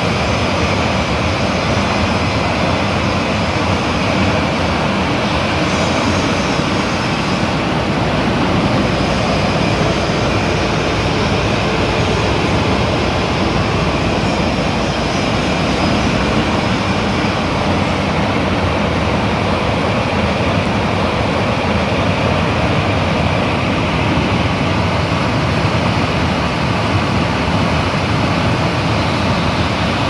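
Industrial axial exhaust fan with an aluminium impeller and WEG electric motor running: a steady, loud rush of air.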